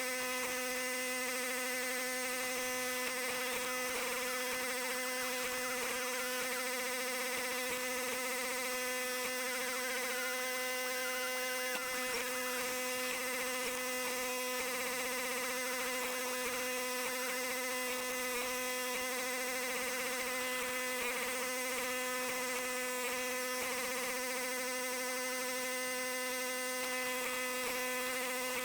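A steady motor whine held at one constant pitch, with no change in speed or load.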